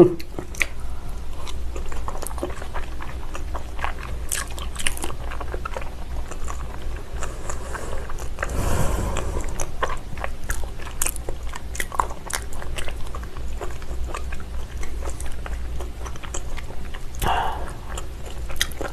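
Close-miked chewing of raw salmon sashimi: a steady run of small wet mouth clicks, with a brief rush of noise about halfway through.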